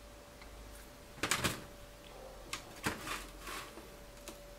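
Short clicks and scrapes of hydraulic cylinder parts handled on a metal bench as a seal is worked onto a forklift tilt-cylinder piston by hand. The loudest cluster comes about a second in, with more scrapes around three seconds and a last click near the end, over a faint steady hum.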